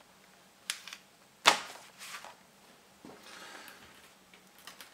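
Handling noises at a workbench: a few light clicks and one sharper knock about one and a half seconds in, with a soft rustle around three seconds in.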